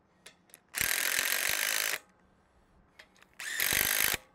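Cordless impact driver with a deep socket, run in two bursts, the first about a second long and the second near the end slightly shorter. It is driving nuts down on the bumper-pad bolts until the rubber pads compress.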